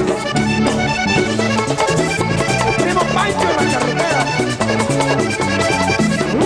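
Vallenato music: an instrumental passage led by accordion over a steady percussion beat, with no singing.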